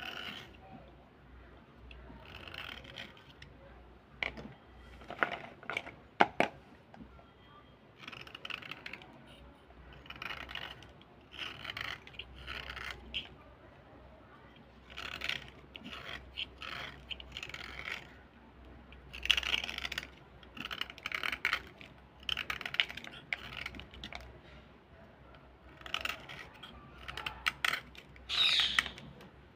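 Utility knife blade scraping along a white slate pencil, shaving off powder in repeated short strokes that come in runs of a second or so with brief pauses. A few sharp clicks fall about four to six seconds in.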